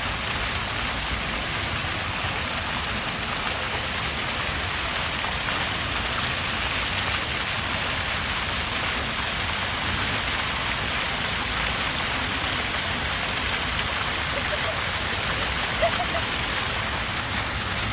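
Steady rushing water, an even, unbroken hiss.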